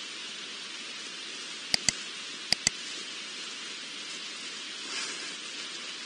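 Steady, even hiss of outdoor background noise on a wildlife camera's microphone, broken about two seconds in by two quick pairs of sharp clicks.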